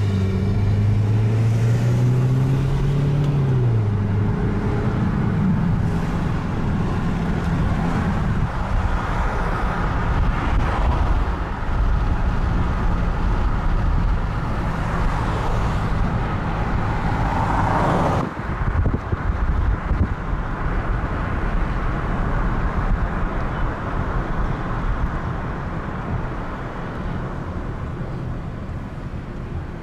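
A motor vehicle driving: steady engine and road noise, with the engine note rising over the first few seconds and then dropping away about four seconds in.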